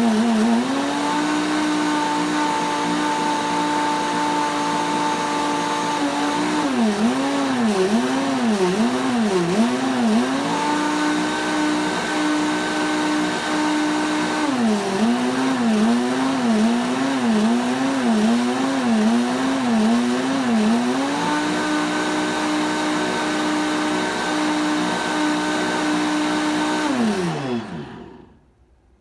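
Kuvings SV500 blender motor running. Its pitch holds steady, then twice wavers up and down in a quick rhythmic cycle of about one to two swings a second, before settling steady again. Near the end the motor winds down, its pitch falling, and stops.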